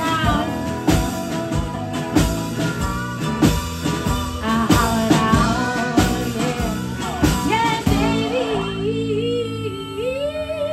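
Live country-rock band playing, with drums keeping a steady beat under acoustic guitar and steel guitar. About eight seconds in the drums drop out, leaving a single wavering, sliding tone.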